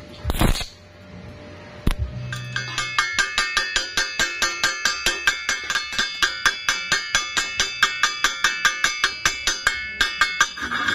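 A chipping hammer rapidly tapping slag off a fresh stick weld on a thin steel square tube, about five strikes a second, each hit ringing from the steel. At the very start, a brief crackle of the E6013 stick-welding arc just before it stops.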